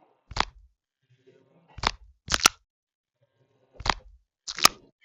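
Nee-Doh squishy toys being handled for ASMR: about seven sharp, crunchy clicks, spaced irregularly, some in quick pairs.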